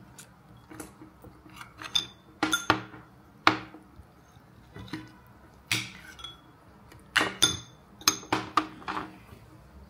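Spoons clinking against dishes and bowls while food is served out: about a dozen irregular sharp clinks, each with a brief high ring.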